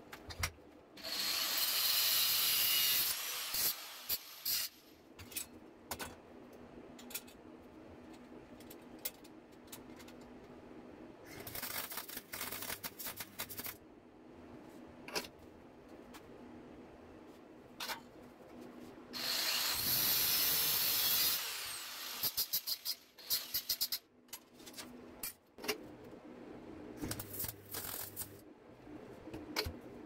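Three short bursts of welding, each a rough crackling hiss of about two seconds, as stainless-steel cutlery pieces are tacked together into a wing. Between the bursts the knives and spoons clink and tap as they are handled.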